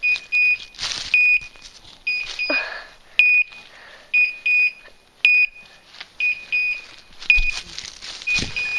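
A setter's beeper collar sounds short, high, steady beeps about once a second, some in quick pairs. This is the point-mode signal that the dog is standing on point. Branches and dry leaves rustle in bursts as someone pushes through the brush.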